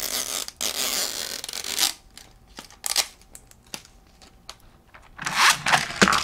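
Plastic toy packaging being opened by hand: a couple of seconds of tearing and scraping, then a few sharp plastic clicks. Near the end comes a louder, rasping zip ending in a sharp click, as a ripcord is worked through a plastic toy launcher.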